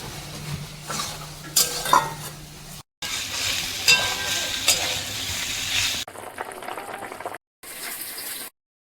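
Soybean and potato curry frying in a pan and being stirred, with sizzling and the clinks and scrapes of a spatula against the pan. The sound breaks off abruptly about three and six seconds in, where clips are cut together, and stops dead shortly before the end.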